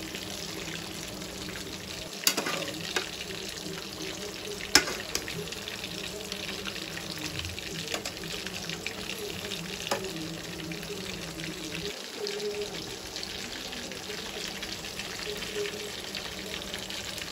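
Chicken masala gravy simmering on a low flame in a pot, a steady sizzle with small crackling pops. Two sharp clicks stand out, about two and five seconds in.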